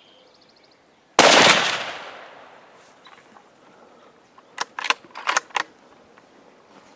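A single loud gunshot about a second in, with a ringing tail that fades over about a second. A few seconds later comes a quick cluster of sharp clicks and knocks.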